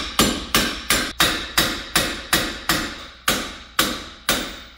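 Hand hammer striking a Subaru's rear wheel hub, metal on metal, in steady blows about three a second, each a sharp hit with a short ring. The hub and wheel bearing are seized in place, and the blows are meant to knock them loose.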